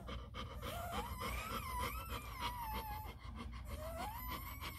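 Newborn Labrador retriever puppy crying in thin, high-pitched wavering whines: one long cry that starts about half a second in and lasts about two and a half seconds, then a second cry rising near the end.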